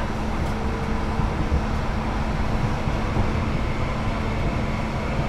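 Duewag/Kiepe B80D Stadtbahn light-rail car running at a steady pace: a continuous low rumble with a steady hum over it.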